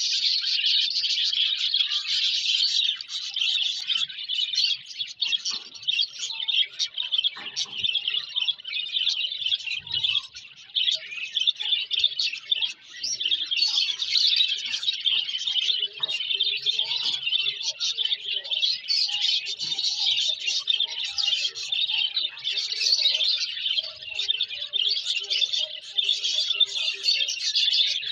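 Many small birds chirping continuously, their calls overlapping into a dense chatter, with scattered lower calls mixed in. A few faint knocks come from a knife dicing a root vegetable on concrete.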